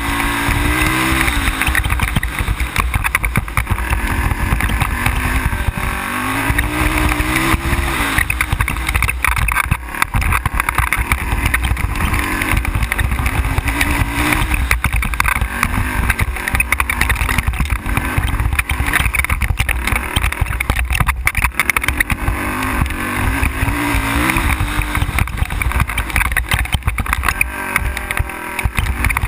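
ATV engine running as it is ridden along a dirt trail, its pitch rising and falling several times as the throttle opens and eases. Frequent short knocks and rattles run through it.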